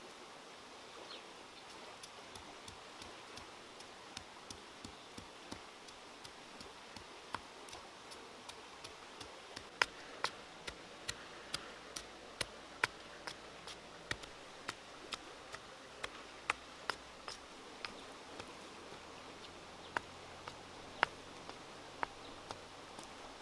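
Pestle pounding in a stone mortar: a long run of sharp knocks, about two a second, louder through the middle and thinning out near the end, over a faint steady hiss.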